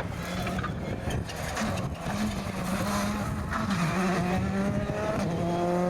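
Rally car engine running hard, its pitch climbing in the last second or so as it accelerates.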